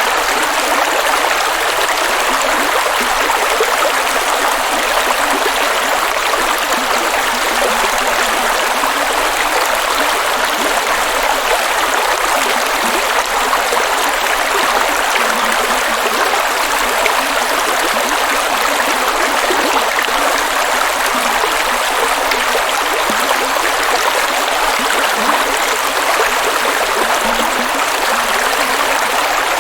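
Rushing water, one steady, unbroken rush with no breaks or changes.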